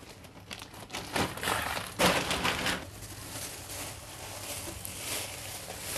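Plastic bags and bunches of leafy greens rustling and crinkling as produce is handled and moved about on a counter. The loudest stretches come about one and two seconds in.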